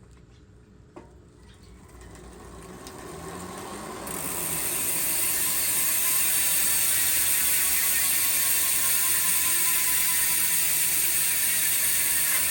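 Koozer XM490 mountain-bike rear hub's freehub pawls ratcheting as the wheel freewheels: a loud, steady, fast clicking buzz that builds up over the first few seconds and then holds.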